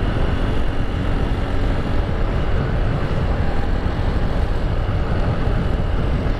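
Wind buffeting the microphone over the steady drone of a motorbike riding along at speed, engine and road noise blended into one unbroken rumble.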